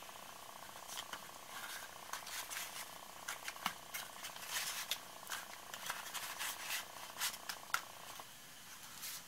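Small cardstock gift boxes being handled and stacked: irregular paper rustling with light taps and clicks. A steady background hum underneath cuts out near the end.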